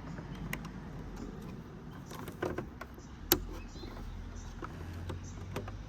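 Small plastic clicks and handling noise as the rear camera and tailgate latch wiring connectors are fitted, with one sharp click about three seconds in.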